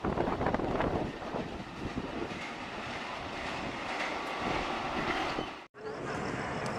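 Express train coaches rushing past at speed and running away down the track: a steady rushing rumble of wheels on rails that slowly eases. It cuts off abruptly near the end, and a quieter, steady background noise follows.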